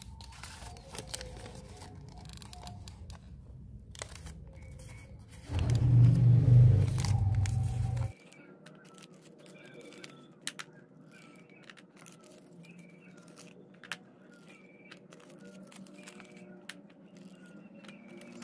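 Paper cupcake liners crinkling and rustling with sharp little clicks as they are folded and handled. About five and a half seconds in, a loud low rumble lasts about two and a half seconds and then cuts off suddenly.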